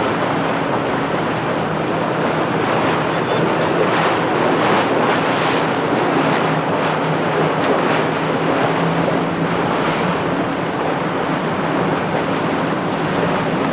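Wind buffeting the microphone over rushing water and waves as boats move fast across choppy sea, with a low steady hum underneath.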